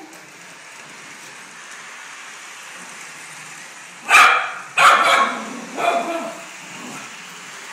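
Maltese dog barking three times in quick succession about four seconds in, the third bark weaker than the first two.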